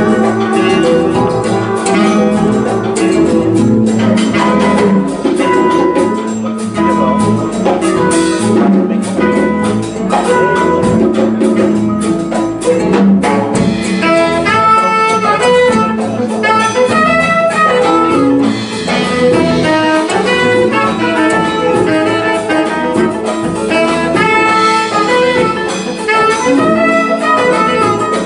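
Live jazz band playing. From about halfway, a trumpet leads with a bending melodic line over saxophone, piano, guitar and congas.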